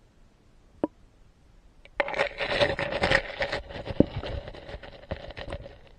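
Handling noise from a camera held underwater in a shallow creek: a single click about a second in, then a few seconds of scraping and knocking with one sharp knock in the middle, dying away near the end.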